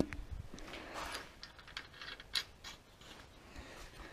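Scattered light metallic clicks and knocks, with a sharper knock at the start, as the steel steering and lift linkage of an Oliver 575 plow is handled and fitted together by hand.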